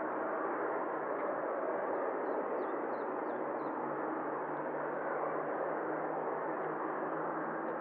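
Boeing 777-300ER's GE90 jet engines running steadily at idle with the aircraft standing still, an even rushing hum with a faint low drone.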